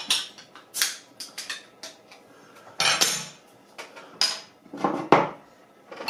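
Metal bottle opener clinking against a glass beer bottle and prying off its crown cap, a series of sharp clicks and clinks with short hissy bursts; near the end the beer is poured into a glass.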